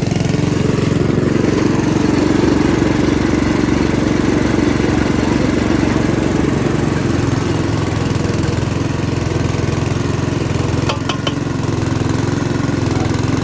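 Engine-driven sugarcane juice crusher running steadily as cane sticks are fed through its rollers. A couple of sharp clicks sound about eleven seconds in.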